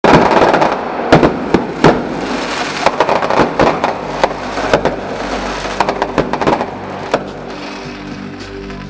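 Fireworks going off overhead: a dense crackle studded with many sharp bangs, loudest in the first few seconds and thinning out toward the end.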